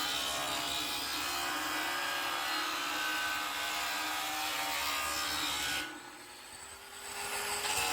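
9-inch Metabo angle grinder cutting into a 500 mm galvanized steel pipe with a cut-off disc, a steady grinding noise. About six seconds in, the grinding noise falls away for about a second and a half while the motor's pitch slowly rises, then the disc bites into the cut again.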